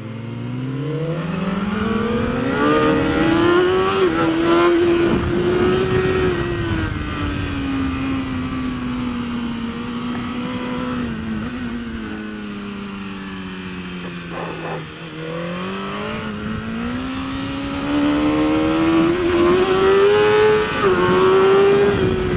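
Onboard sound of a BMW S1000RR superbike's inline-four engine under hard acceleration on track, with wind rushing past. The revs climb steeply, hold high, sink slowly over several seconds, then climb again, with a brief dip at a gear change near the end.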